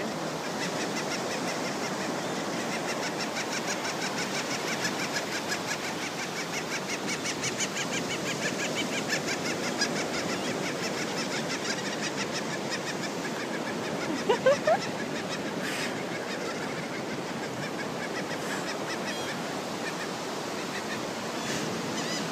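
Laughing gulls mating: a rapid run of short repeated high calls, several a second, that fades out after about twelve seconds, over a steady hiss of wind and surf. About fourteen seconds in comes one short, loud rising call.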